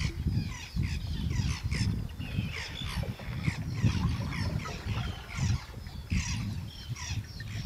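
A flock of feeding seabirds calling: many short, quick, high calls overlapping one after another, over a steady low rumble.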